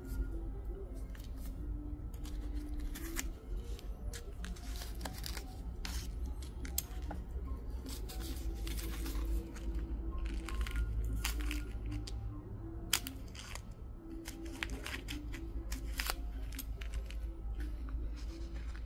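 Background music with a steady melody, over many short sharp snips and small tearing sounds of bonsai pliers and cutters working on a small Chinese juniper's branches and bark.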